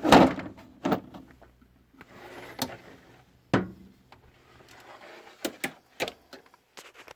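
Metal hand tools and sockets clinking and knocking as they are handled in a steel tool-chest drawer, with softer sliding and rustling between the knocks. The loudest knock comes right at the start.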